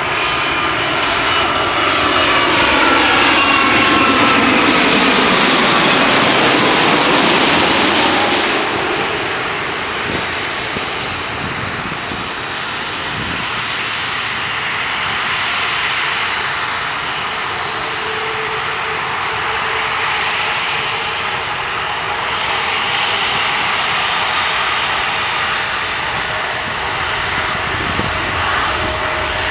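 Boeing 787 Dreamliner's GEnx turbofan engines passing low overhead on landing approach: a loud jet rush with a falling whine, loudest about four to eight seconds in. After that it settles to steadier, quieter engine noise as the airliner is on the runway.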